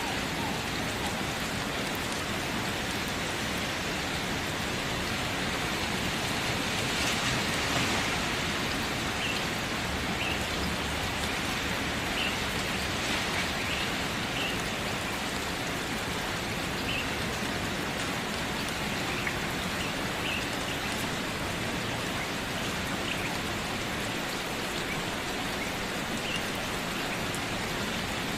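Steady rain falling, a dense, even hiss of drops on surfaces, swelling slightly about seven seconds in.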